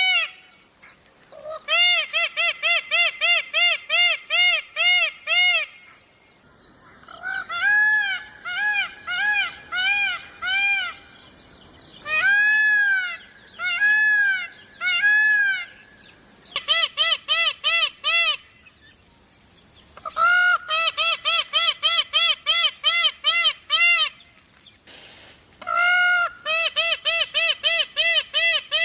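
Indian peafowl calling: bouts of short, loud, honking notes repeated rapidly, about four or five a second, with a few slower stretches of longer notes and short pauses between bouts.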